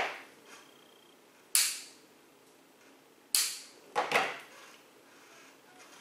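A few sharp clacks of small hand tools and fittings being handled and set down on a table: one right at the start, one about a second and a half in, one a little past three seconds, and a quick double about four seconds in.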